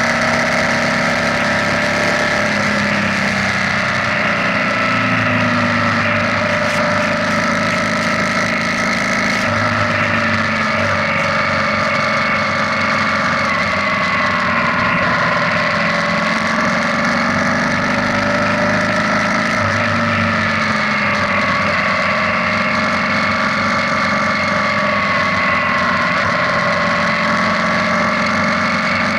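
BMW R nineT's boxer-twin engine running at cruising speed on the open road, its pitch slowly dipping and rising a few times with the throttle, over a steady rush of wind and road noise.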